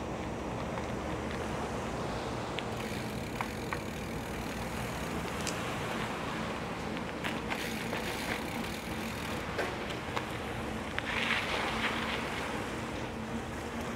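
A Surly Karate Monkey mountain bike being ridden: its large tyres rolling with a steady noise and wind on the microphone, with scattered light clicks.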